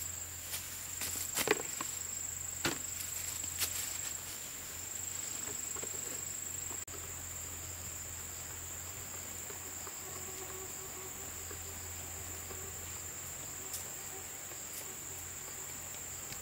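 Insects, crickets or cicadas, keep up a steady high-pitched drone, with a few short soft knocks in the first four seconds.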